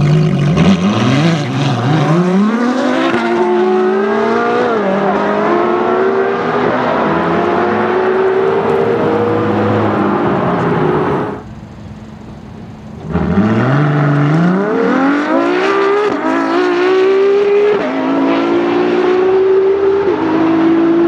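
Ferrari LaFerrari's V12 and a Ferrari 458 Speciale's V8 launching together from standstill at full throttle, engine pitch climbing through gear after gear with a drop at each upshift. About eleven seconds in it turns quieter for a moment, then the LaFerrari's V12 pulls hard again at full throttle through several more upshifts.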